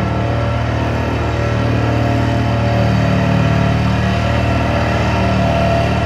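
Diesel engine of a tracked drilling rig running steadily under load, a low hum that swells slightly about three seconds in.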